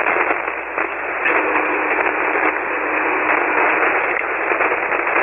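Steady hiss and room noise over a single-sideband ham radio signal, confined to the narrow voice band, swelling slightly about a second in. The other station is holding the transmitter keyed without speaking, and his speech compressor is bringing up the background noise of his room, heard as the compressor 'coming up'.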